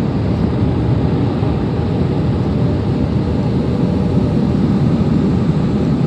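Tunnel car wash dryer blowers running with a loud, steady rush of air, heard from inside the car.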